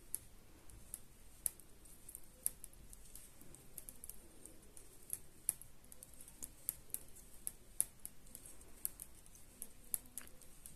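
Metal knitting needles clicking lightly against each other as stitches are bound off, in short irregular clicks about two a second.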